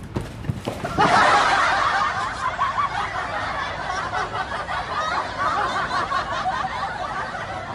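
A few knocks, then about a second in loud chuckling laughter comes in suddenly and keeps going.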